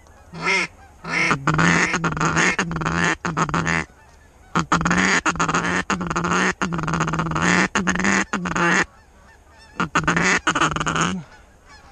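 Geese honking loudly and close, in several long runs with short breaks, as the flock passes low.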